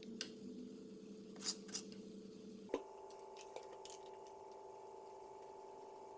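Faint stirring in a clay cooking pot: a few light taps and scrapes of the spoon over a steady low hum.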